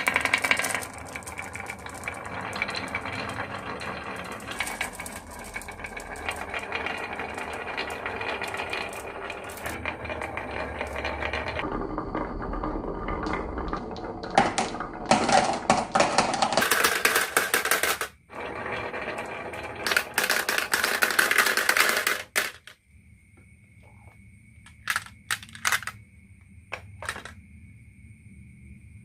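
Many marbles rolling and clattering down a marble run, a dense stream of clicks and rattles. It breaks off suddenly about 22 seconds in, leaving a few scattered clicks.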